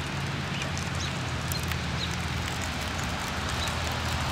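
Steady rain falling, with scattered drops ticking, over a low steady hum.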